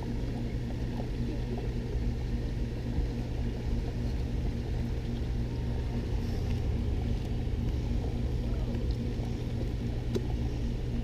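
Steady low mechanical hum and rumble from the machinery at a gem-mining sluice, where a motor keeps water running through the flume. A single faint click comes near the end.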